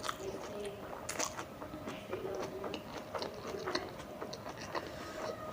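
Close-up mouth sounds of someone chewing tandoori momos: irregular wet smacks and small clicks as the food is bitten and chewed.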